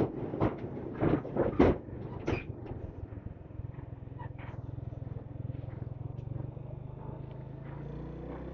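Loose steel deck plates of an iron bridge clanking loudly under a motorcycle's wheels, a run of about six knocks over the first two seconds or so. After that the motorcycle's engine runs steadily as it rides on along the road.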